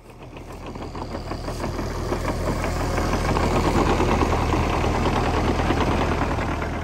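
SANY SY50U mini excavator's diesel engine running with a dense, rapid knocking clatter as the machine works its boom and bucket. The sound fades in over the first couple of seconds and eases off near the end.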